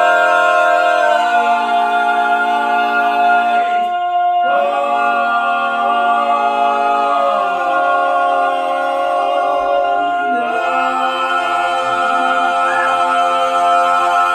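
A cappella vocal group singing the closing chords of a song: one voice holds a long, unchanging high note, the post, while the other voices move through several chord changes beneath it.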